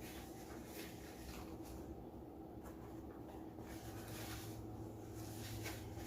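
Faint scattered rustling and small handling noises over a steady low electrical hum.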